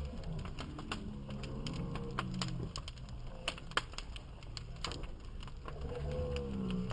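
Bonfire crackling: irregular sharp pops and clicks of burning wood, several a second, over faint low held tones in the background.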